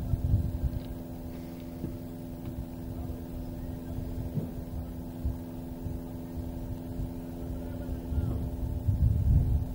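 A steady machine or electrical hum, with low rumbling noise that swells near the start and again near the end.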